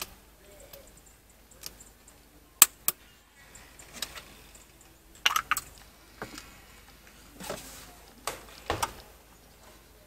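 Scattered clicks, taps and rustles of hands working on parts in a truck's engine bay, with two sharp clicks about two and a half seconds in and clusters of handling noise later on. The engine is not running.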